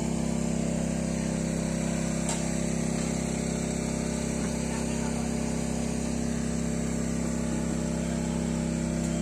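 A steady engine-like hum, unchanging in pitch and level throughout, like a small engine idling.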